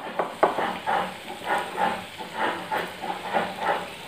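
Wooden spatula stirring chicken liver and gizzard fry in a frying pan, with soft scraping strokes about twice a second over the sizzle of the thick masala.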